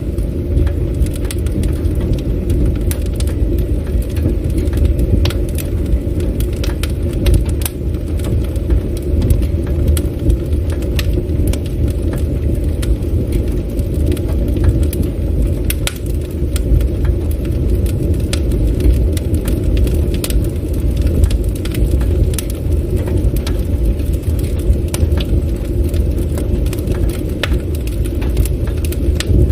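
Wood campfire burning: a steady low rumble of flames with frequent, irregular sharp crackles and pops from the burning wood.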